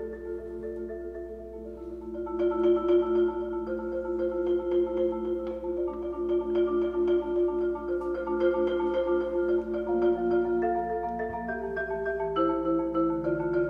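Solo marimba played with four mallets: sustained chords, soft for the first two seconds, then swelling louder, with the harmony shifting every second or so.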